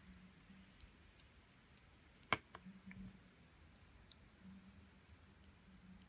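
Small clear plastic figure-stand parts clicking as they are handled and pressed together by hand. There is one sharp click a little over two seconds in, a softer one just after, and faint light ticks around them.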